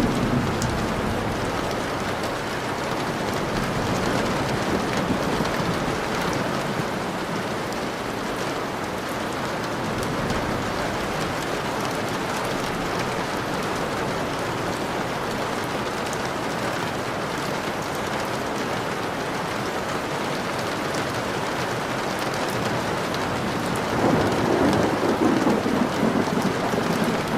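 Steady heavy rain falling, a continuous even hiss, with a rumble of thunder swelling in near the end.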